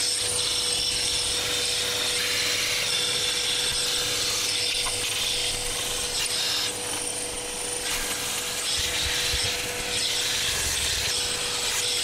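Vacuum cleaner running, with a constant motor whine and an airflow hiss that dips and swells as the nozzle is moved around the amplifier chassis, sucking up loose dust and corrosion debris.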